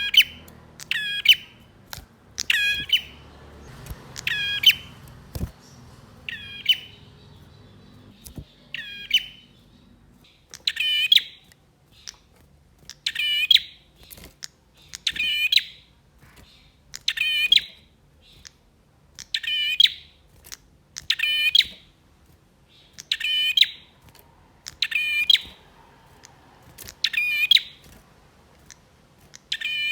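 Male prinia (prenjak) calling persistently: a short, loud, rapidly warbled note repeated about every one to two seconds, with one longer pause early on.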